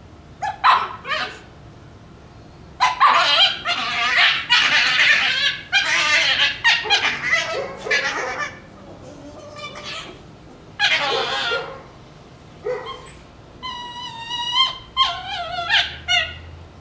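Shiba Inu puppies vocalising in play over a bone with the breed's shrill, fox-like scream: a few short yelps, then long harsh screams through the middle, and high wavering whines and yips near the end.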